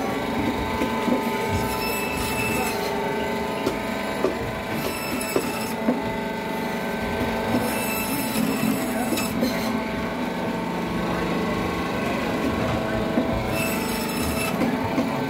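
A blade scraping and cutting through a large grass carp, in strokes a second or two long, with scattered knocks, against a steady hum.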